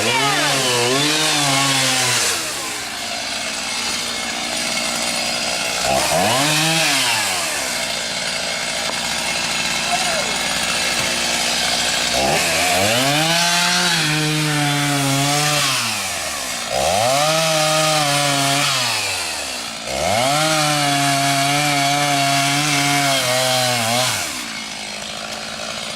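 Two-stroke chainsaw revved hard about five times. Each time the engine climbs to a high whine, holds, then drops back to a low idle, with the longest run at full throttle in the second half.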